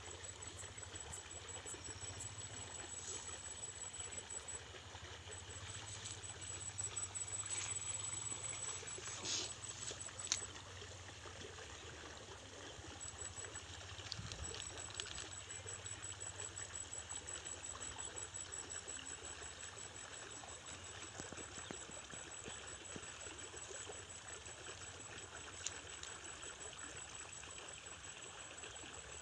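Water trickling steadily in a small creek, with a thin high-pitched pulsing tone that comes and goes and a few light clicks in the first half.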